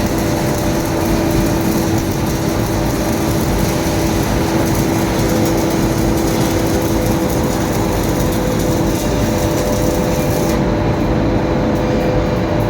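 Steady industrial machinery noise with a constant two-tone hum under a broad hiss; the highest part of the hiss drops away near the end.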